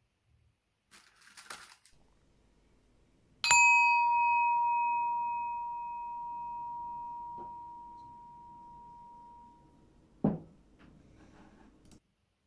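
Small sacral chakra singing bowl, resting on an open palm, struck once with its wooden mallet: a clear ringing tone with fainter higher overtones that slowly fades over about six seconds. A brief rustle comes before the strike, and a dull knock comes near the end as the bowl is set down.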